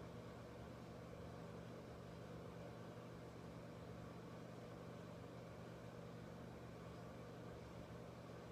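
Faint steady low hum with no distinct events.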